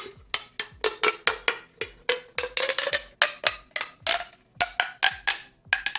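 Orange plastic pop tube fidget toy being stretched and squeezed, its ridged sections snapping open and shut: a rapid run of sharp pops, about four a second, each with a brief ringing tone.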